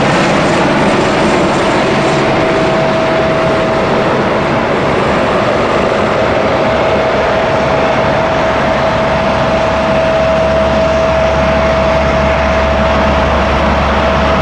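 Doctor helicopter in flight close by: steady rotor and turbine-engine noise with a constant mid-pitched whine, and a deeper hum joining about ten seconds in.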